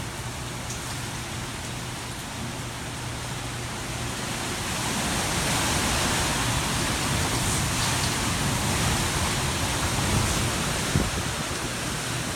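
Hurricane-force wind and rain, a steady rushing noise that grows louder about five seconds in as a gust builds.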